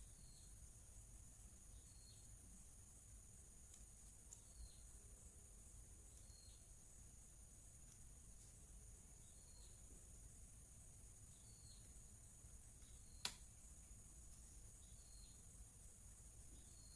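Near silence: room tone with a faint steady high hiss, a faint short chirp repeating about every two seconds, and one sharp click about thirteen seconds in.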